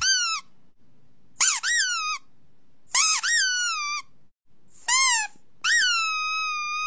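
Five high-pitched squeaks, each rising and then falling in pitch. The last one is drawn out longer and levels off before stopping.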